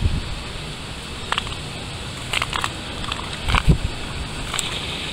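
Footsteps through fallen branches and leaf litter on grass, with scattered crackles of twigs and leaves and one dull thump about three and a half seconds in.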